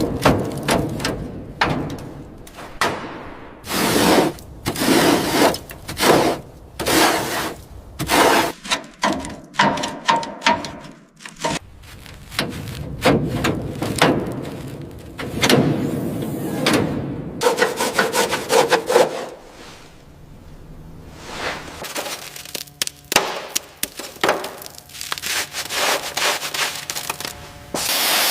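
Hand-work noises from restoration: a long run of rubbing and scraping strokes, like sanding or scraping, broken by a few sharp knocks and short pauses.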